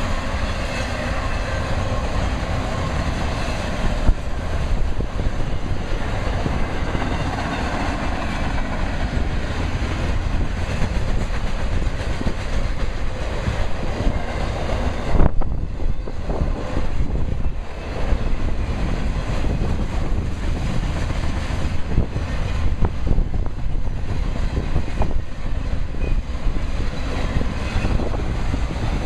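Train rolling past, its wheels clacking over the rail joints, with wind buffeting the microphone.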